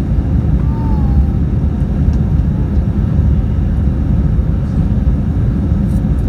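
Steady low rumble inside the cabin of an Airbus A320neo airliner, with a faint short falling whistle-like tone about a second in.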